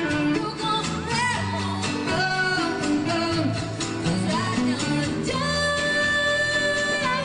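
Live band performance of a pop-rock song, with a singer's sustained, bending vocal lines over guitar, bass and drums.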